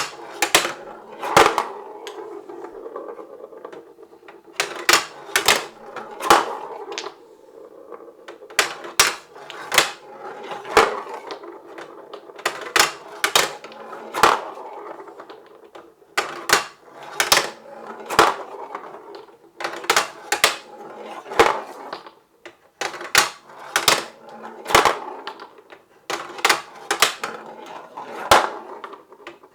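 Marbles rolling along a marble run: a steady rolling rumble broken by sharp clicks and clacks, often in quick clusters of two to four, every second or two.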